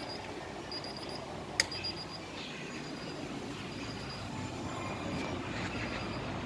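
Steady rustling and handling noise as a phone camera is moved and repositioned, with one sharp click about a second and a half in.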